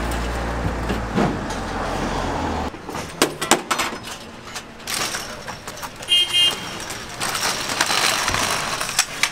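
Aluminium pop-up canopy frame being handled and pulled open: metal knocks and clanks, then a rattling scrape of the folding struts. A steady low hum in the first few seconds cuts off suddenly, and a brief high beep sounds about six seconds in.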